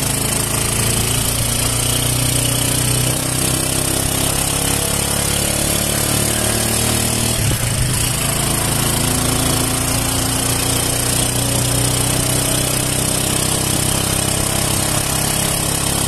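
A motor vehicle's engine running steadily while riding, heard from on board, its pitch shifting a little with speed.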